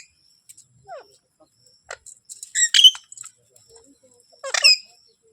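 Indian ringneck parakeet giving short, separate high-pitched calls: a brief falling note about a second in, a pair of squeaky calls near the three-second mark, and a louder, harsher call about four and a half seconds in.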